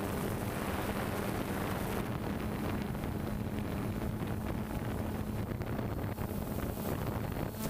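DJI Phantom quadcopter's rotors humming steadily, a droning tone under a hiss of air on the microphone.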